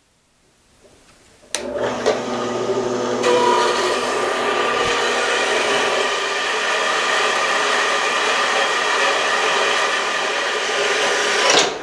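A 4x6 horizontal metal-cutting bandsaw switching on about a second and a half in and running steadily with a mechanical whir, its blade cutting through flat steel stock. It cuts off near the end.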